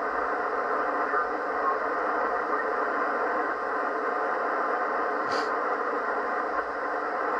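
Steady shortwave static from the Yaesu FT-710 transceiver's speaker in USB mode, an even hiss limited to the narrow voice passband with no clear signal in it.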